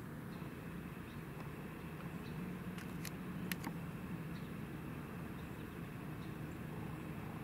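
Steady low hum over faint outdoor background noise, with two or three sharp clicks about three seconds in.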